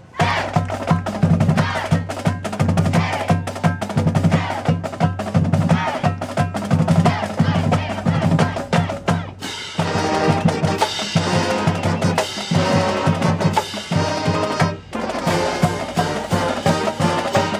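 Marching band drumline playing a fast cadence on snare and bass drums. About ten seconds in, the brass section comes in with the drums.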